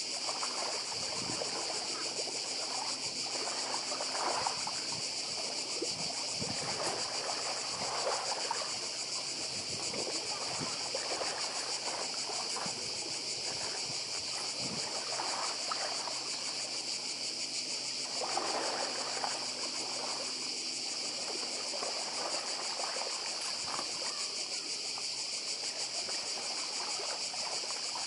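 A chorus of cicadas buzzing steadily at a high pitch, over small sea waves lapping and washing against shoreline rocks every few seconds.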